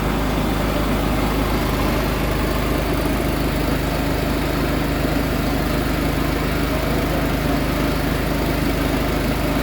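40 HP crude-oil hot bulb engine running steadily, just started after standing unused for over 40 years.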